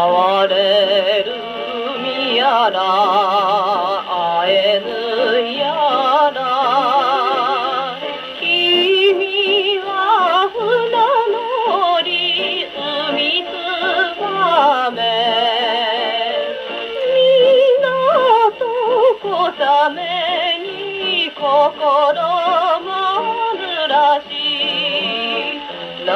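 A 1949 Japanese popular song playing from a 78 rpm record on a Columbia G-241 portable gramophone with an acoustic soundbox: an instrumental passage between verses, its melody lines carrying heavy vibrato. The sound is thin with no bass.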